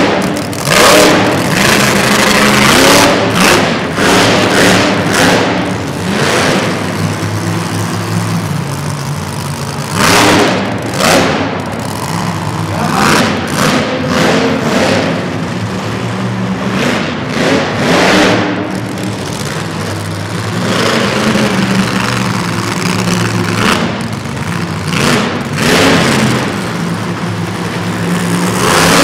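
Monster truck engine running loudly and revving in repeated surges, its pitch rising and falling every second or two.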